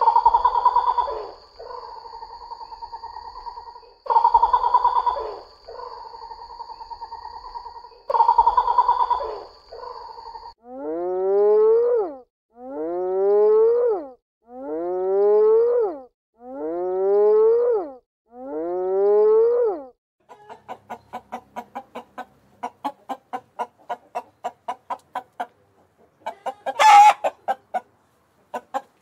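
Hornbills calling: three loud calls about four seconds apart, each trailing off into a steady hum. Then a spotted hyena gives five rising whoops, evenly spaced. After that comes a fast run of clicks, about four a second, and one sharp, loud call near the end from ring-necked pheasants.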